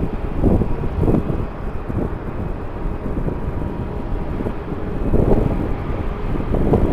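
Strong wind gusting against the microphone over the steady rumble of jet airliner engines, with a faint steady engine whine.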